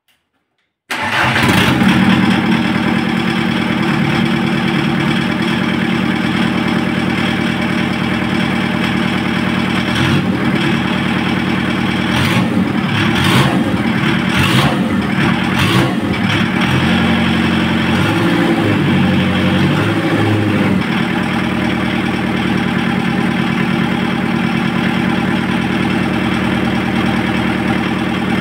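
A VW 1.9 D four-cylinder diesel engine, running on a stand outside the car, starts up about a second in and runs. Its speed changes between about 10 and 21 seconds, with a few sharp clicks, then it settles to a steady idle.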